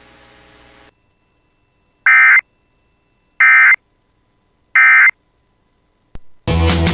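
Emergency Alert System end-of-message data tones: three identical short, loud buzzing bursts just over a second apart, marking the end of the alert. A faint hum fades out about a second in, and music starts right at the end.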